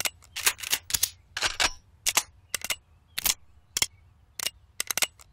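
Police handguns, a revolver and semi-automatic pistols, being drawn and cocked: a long, irregular string of sharp metallic clicks and clacks, often in quick pairs.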